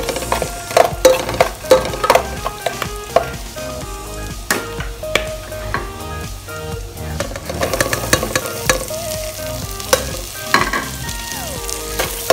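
Minced garlic sizzling in hot oil in an aluminium pot while a metal spoon stirs it, clinking and scraping against the pot's sides and bottom in irregular knocks.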